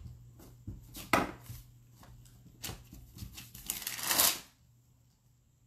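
Parchment paper rustling and crinkling under hands working clay on a tabletop, with scattered taps. There is a sharp tap about a second in, and the loudest, longest crinkle comes about four seconds in.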